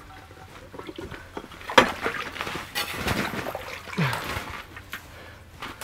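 Water splashing and sloshing in an ice-fishing hole as a hand works in it to free a small fish snagged by the hook on the underside of the ice, with irregular handling noises and a sharp click about two seconds in.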